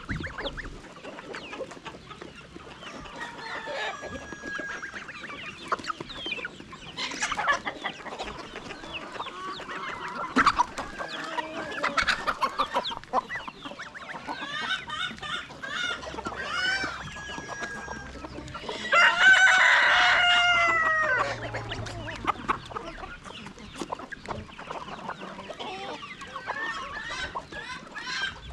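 Flock of chickens clucking, with many short calls throughout and a rooster crowing loudly once about two-thirds of the way through.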